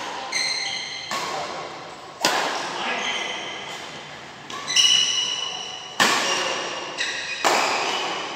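Badminton doubles rally: rackets striking the shuttlecock about once a second, eight or so sharp hits that ring out in the hall. Short high squeaks of players' shoes on the synthetic court come between the hits.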